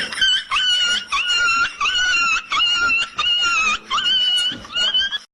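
A dog giving a quick series of high-pitched yelps, about two a second.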